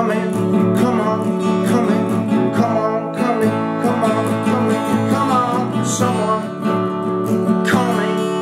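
Acoustic guitar strummed and picked steadily, chords ringing on through an instrumental passage between sung lines.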